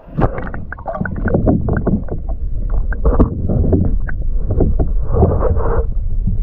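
Water splashing and irregular knocks against a kayak as a bass is handled and let back into the lake, over a steady low rumble.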